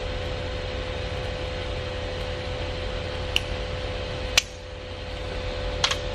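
TIG welding arc running with a steady hiss and hum while filler rod is fed into a small fitting. About four and a half seconds in the arc stops with a sharp click, and a couple of short clicks follow near the end.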